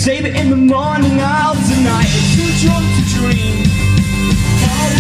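Live punk rock band: a singer over acoustic and electric guitars, bass and drums. About two seconds in the full band comes in harder, with drums and bass filling out the sound.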